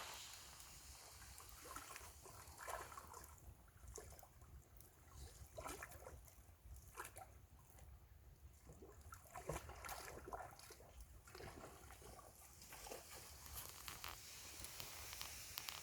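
Faint campfire crackling, with irregular sharp pops and ticks, over a quiet trickle of river water.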